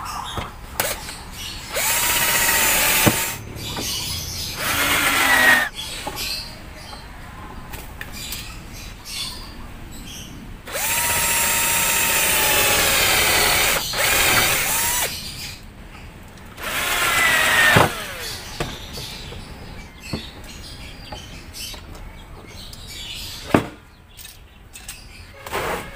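Handheld electric drill run in four short bursts, each one to three seconds long, spinning up at the start and winding down at the end. A few sharp knocks of wood or tool come between the bursts, the loudest near the end.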